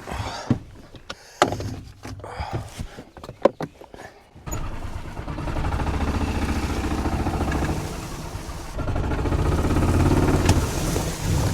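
A few knocks and clunks, then about four seconds in a golf cart's petrol engine starts abruptly and runs steadily, getting louder near the end as the cart pulls away under load.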